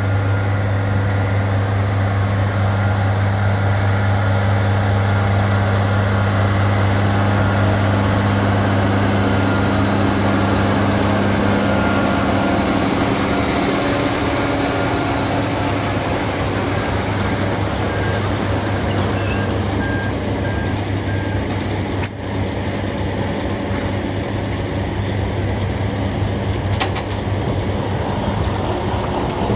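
Tractor diesel engine and a Kuhn FBP 3135 round baler-wrapper running together, a steady mechanical drone. A strong low hum fades out about halfway through, and there is a brief break about two-thirds of the way in.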